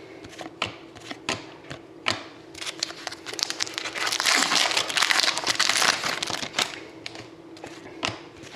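Foil wrapper of an Upper Deck hockey card pack being torn open and crinkled for a few seconds in the middle. Before and after it come sharp ticks of card stock as cards are flipped and tapped.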